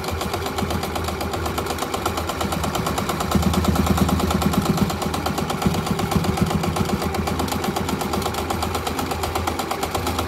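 Old domestic sewing machine running steadily at speed, stitching through layered cotton fabric: a rapid, even clatter of needle strokes over a steady motor hum.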